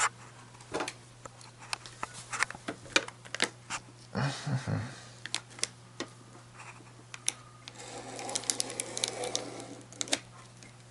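Scattered sharp clicks and light rattles of server hardware being handled, with a denser patch of clatter about eight seconds in, over a steady low hum.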